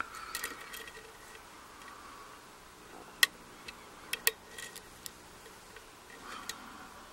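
Lock pick and tension tool working the pins of a pin-tumbler euro cylinder lock: faint scraping with a scattering of sharp metallic clicks, the loudest about three seconds in and a close pair a second later.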